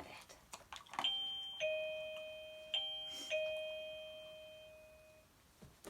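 Plug-in doorbell chime sounding a two-tone ding-dong twice, about a second and a half apart, each tone ringing on and fading away.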